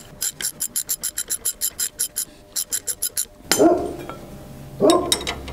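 A fast run of light clicks, about seven a second, for about three seconds. Two louder short sounds follow near the end.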